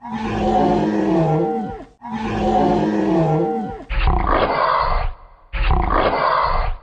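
Four loud roars: two long ones that fall in pitch, then two shorter, rougher ones.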